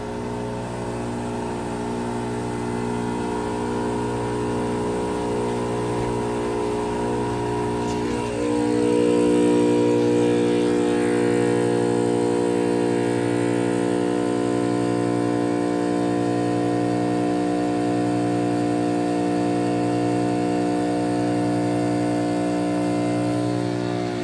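2012 Pelonis Elite heat pump's compressor running loud as the unit stabilizes while switching into defrost: a steady hum with several tones. About eight seconds in the tones shift and it gets louder, then it holds steady.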